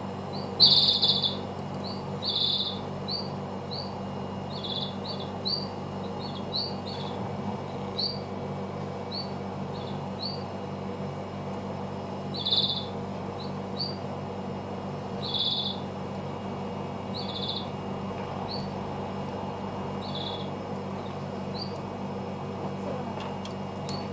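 A small bird chirping repeatedly: short high calls at irregular intervals, the loudest about a second in, over a steady low hum.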